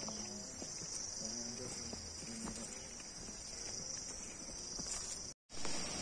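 A steady, high-pitched drone of insects in tropical forest, with faint footsteps on a dirt path. The sound drops out for a moment near the end.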